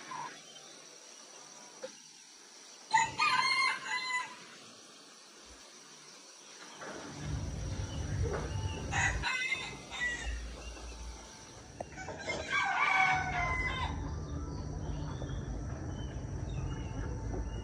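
A rooster crowing, three times, the first crow the loudest; from about seven seconds in a low rumble runs under it.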